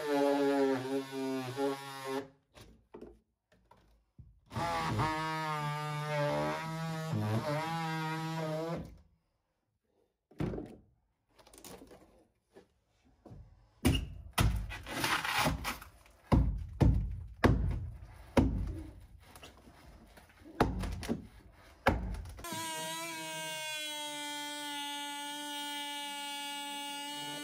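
DeWalt oscillating multi-tool cutting fiberglass, buzzing in two runs with its pitch wavering under load. Then a stretch of scattered knocks and thunks as broken fiberglass and rotten wood are knocked loose, and from about two-thirds of the way through the tool runs again with a steady buzz.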